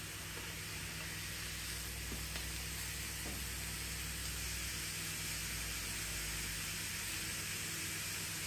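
Steaks and sausages sizzling steadily on the hot plate of a George Foreman indoor-outdoor electric grill as the steaks sear, with a couple of faint taps of metal tongs.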